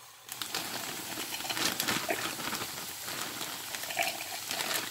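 Loose corn kernels pouring from a plastic bag into a plastic food-chopper bowl: a dense, continuous patter of small clicks that starts suddenly about a third of a second in, with the bag crinkling.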